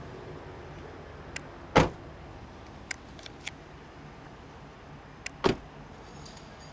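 Doors of a 2002 Chevrolet Avalanche shutting twice: a loud slam about two seconds in and another near the end, each with a small latch click just before it. A few lighter handle or latch clicks come in between.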